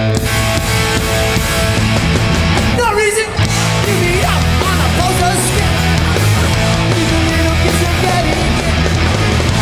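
Hardcore punk band playing live at full volume: distorted guitars, bass and drums, with a short break in the playing about three seconds in.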